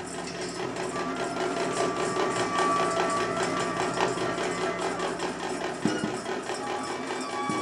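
Free-improvised avant-garde music: a drum kit played in a fast, even clatter of many strokes a second, under held reed tones from soprano saxophone and bass clarinet.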